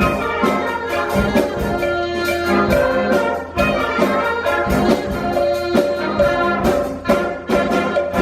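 Middle school concert band playing, brass instruments holding and moving between notes over a steady pulse of sharp percussion strokes.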